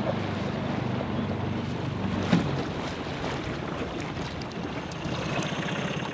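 Small outboard motor running on an inflatable dinghy, a steady low drone, with wind buffeting the microphone and a single knock about two seconds in.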